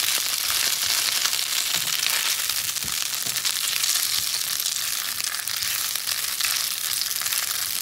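Pelmeni frying in oil in a non-stick pan: a steady, crackling sizzle while a silicone spatula pushes the dumplings around.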